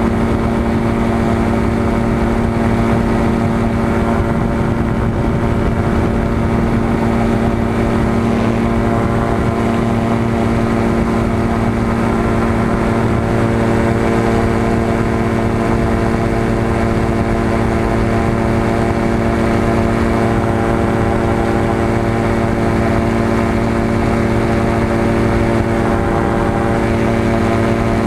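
Aerolite 103 ultralight's engine and propeller running steadily in flight, a loud continuous drone that holds one pitch throughout.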